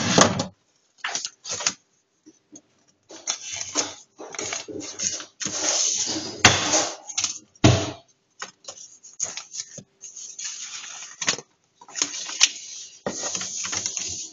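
Someone rummaging and searching through papers and small objects, with irregular rustling and light clattering that comes in short bursts and pauses.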